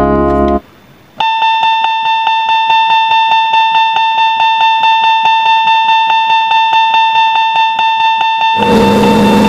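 Railway level-crossing warning bell ringing in a fast, even, repeating ding-ding pattern, starting about a second in as music stops. Near the end a louder train rumble with a low steady tone joins while the bell keeps ringing.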